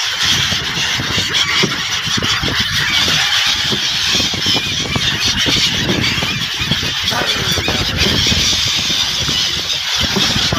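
A large flock of gulls calling all at once, a dense, continuous chatter of overlapping cries as they mob the water for food, with an uneven low rumble underneath.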